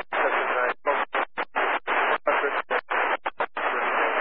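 A pilot's VHF radio call to approach control, broken up by static into choppy bursts with short dropouts, the words unreadable.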